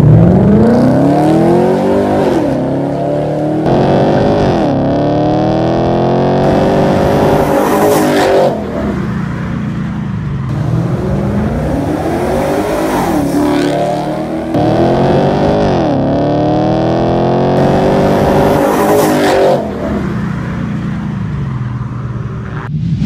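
Ford Mustang 5.0 V8 through a true dual cat-back exhaust, accelerating hard: the engine pitch climbs for a few seconds and then drops at each upshift, several times over.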